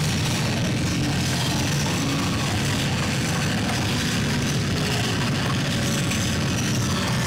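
A dense, steady drone of noise, heaviest in the low range, with no pauses or separate events.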